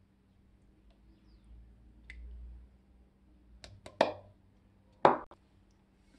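Beaten eggs poured from a plastic cup into a blender jar of cake mix, with a few sharp knocks of the cup against the jar and table. The two loudest knocks come about a second apart, a little past the middle.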